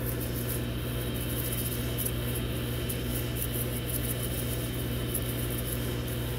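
Steady hum of an electric fan running, a low drone with an even rushing noise over it.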